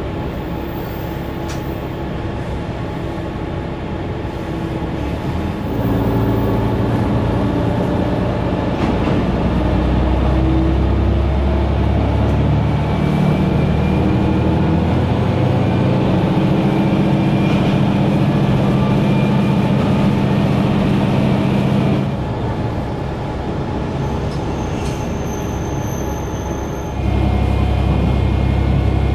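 Diesel railcar (JR West KiHa 120) under way, heard from inside the cabin: the engine runs with steady wheel-on-rail rumble. The engine note grows louder and climbs in pitch about a fifth of the way in, falls back about three-quarters of the way through, and picks up again near the end, with a thin high squeal for a few seconds just before.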